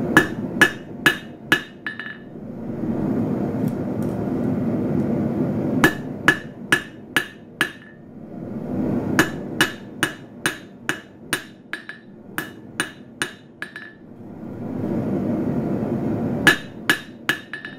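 Hand hammer striking a red-hot steel dagger blade on an anvil, forging in the edge bevels: four runs of light, quick blows, about three a second, each with a brief ring. A steady rushing noise fills the pauses between the runs.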